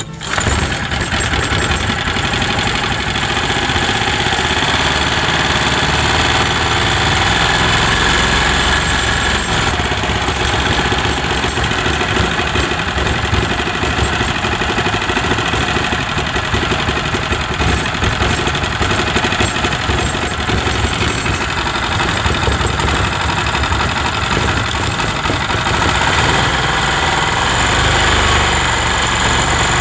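Mitsubishi GM182 single-cylinder four-stroke petrol engine running steadily, its valve clearances freshly adjusted to cure low compression.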